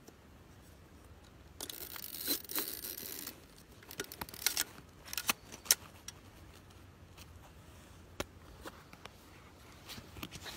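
Film camera with a waist-level finder being handled: a scraping rustle about two seconds in, then a run of sharp clicks and clacks from its controls, the loudest a little past the middle, with a few weaker clicks near the end.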